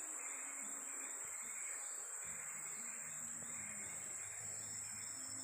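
Rainforest insects droning: a steady high-pitched whine, with a second insect layer just below it pulsing about four times a second.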